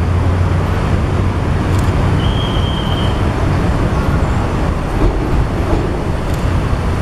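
Steady low rumble of an approaching diesel-hauled freight train, with a short high tone about two seconds in.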